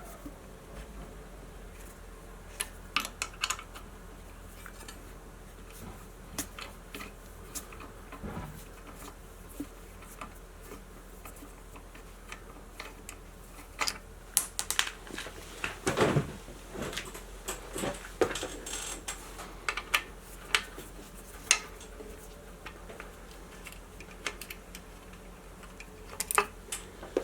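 Scattered small metallic clicks and taps of a 5 mm Allen key turning and working loose the studs that hold a bike's disc brake caliper to the frame, the taps coming more often in the second half.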